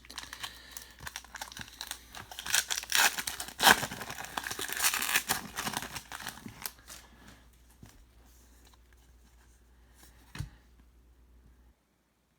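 A trading-card pack wrapper being torn open and crinkled, loudest in the first six seconds. This is followed by a single soft knock about ten seconds in, and the sound then cuts out.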